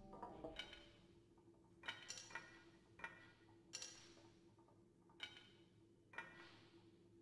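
Sparse sequenced electronic music: about eight isolated percussive strikes, unevenly spaced, each with a bright, ringing decay, over a faint steady hum.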